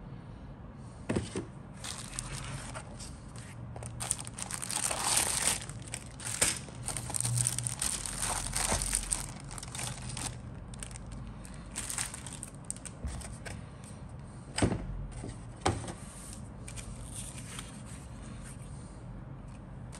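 Clear plastic bag crinkling and rustling as plastic model-kit sprues are handled inside it, in irregular bursts, with a few sharp knocks of the parts.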